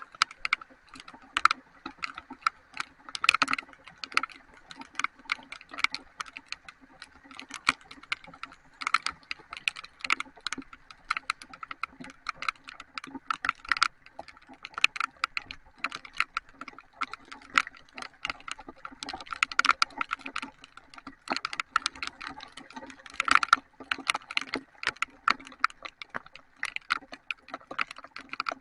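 Heavy rain, large drops striking close to the microphone as a dense run of irregular sharp taps.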